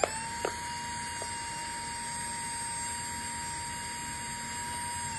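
Small brushed DC motor running unloaded, its fan removed, at full speed off a PWM speed controller: a steady high whine that comes up quickly at the start and begins to fall in pitch as the motor slows right at the end. A short click about half a second in.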